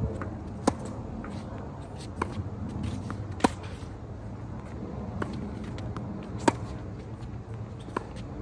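Tennis rally: racquet strings striking the ball six times, about every second and a half, the hits alternately louder and softer as the ball goes back and forth, over steady background noise.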